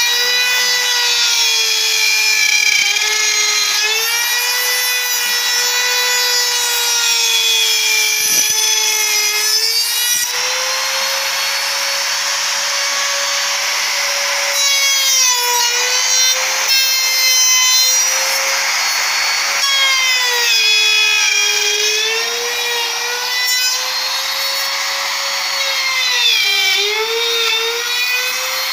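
Hand-held router running at full speed while cutting dovetails through a dovetail jig's comb template, a high steady whine that wavers and dips in pitch. Hissing cutting noise rises over it for several seconds about ten seconds in and again around eighteen seconds in.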